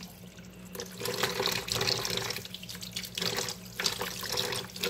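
Tap water running and splashing into a plastic bowl of raw chicken hearts in a kitchen sink as a hand rinses them. The splashing drops away for a moment at the start and twice more briefly.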